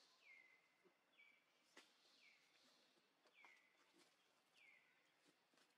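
Faint bird call repeated five times, about once a second, each a short note that slides down and then levels off, with a few soft clicks between.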